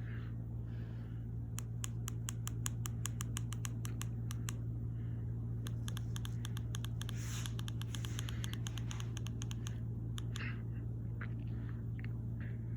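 Fanimation Blitz DC-motor ceiling fan running with a steady low hum. Over it, a quick, even run of sharp clicks, about five a second, starts about a second and a half in and stops about ten seconds in.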